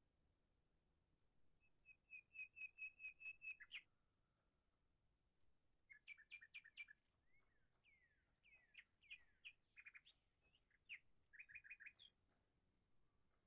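Small songbird chirping: a quick run of evenly repeated notes a couple of seconds in, then bursts of chirps and falling whistles through the middle of the stretch.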